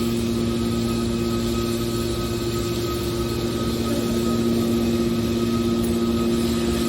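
Metal wire baler machine running with a steady mechanical hum.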